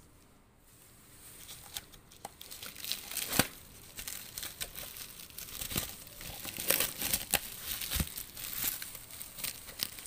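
Clear plastic stretch wrap crinkling and crackling as it is handled, with scattered sharp crackles, the loudest about three and a half seconds in and a thicker run around seven seconds in.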